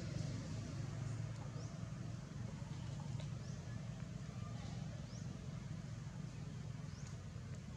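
Outdoor ambience: a steady low rumble with short, high, upward-sweeping chirps every second or two.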